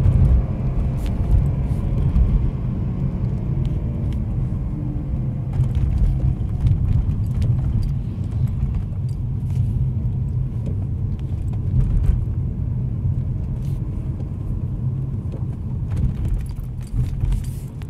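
BMW E46's M54 straight-six, heard from inside the cabin during an 'Italian tune-up' (a hard high-rev run meant to free stuck, oil-burning piston rings). The engine note falls as the revs drop from about 4,000 rpm in the first second, then settles into a steady low rumble as the car slows at low revs.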